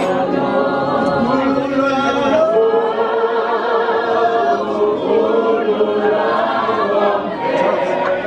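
A group of voices singing together a cappella, in long held notes.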